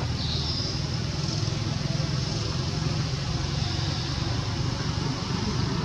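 Steady outdoor background noise: a low rumble under a steady high-pitched hiss or buzz, with no distinct events.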